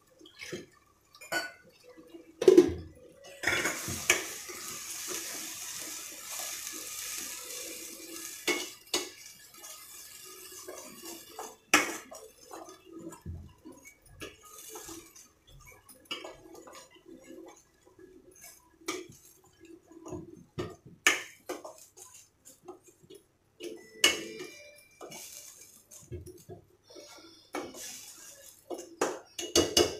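Utensils clinking and knocking against a stainless steel cooking pan, with a sharp knock about two seconds in. From a few seconds in, a steady hiss lasts about seven seconds as liquid goes into the hot pan.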